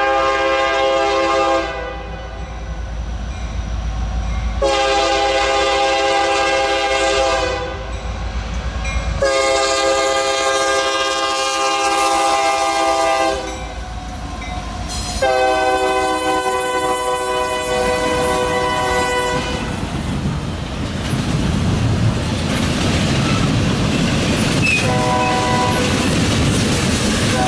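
Norfolk Southern diesel locomotive air horn sounding four long chord blasts as the train approaches, each held for one and a half to four and a half seconds. The locomotives then pass with a rising rumble, followed by the rattle and clickety-clack of double-stack container cars rolling by. A fainter, shorter horn tone comes in near the end.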